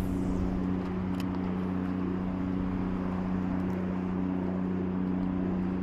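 A steady mechanical hum, like an engine or motor running at a constant speed, with a few faint clicks.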